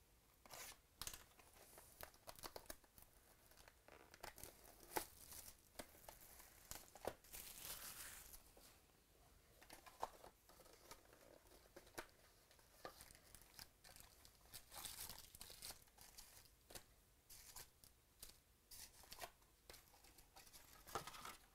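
A sealed trading-card hobby box being unwrapped and opened: faint tearing and crinkling of its wrapping and cardboard, with scattered taps and rustles as the box and its packs are handled, and a couple of longer tearing stretches.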